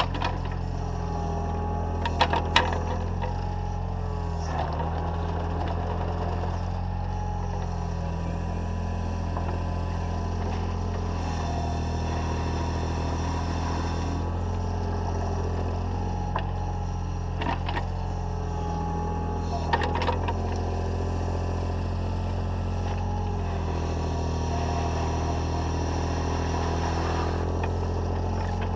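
Takeuchi TB014 mini excavator's diesel engine running steadily as it works its hydraulics, heard up close from on the machine. A few brief clatters come from the bucket scraping and dropping gravel, twice near the start and again a little past the middle.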